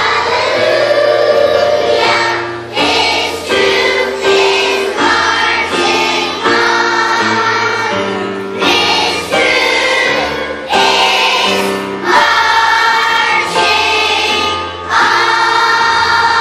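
A large choir of young children singing a song together over an instrumental accompaniment, phrase after phrase with brief breaths between them.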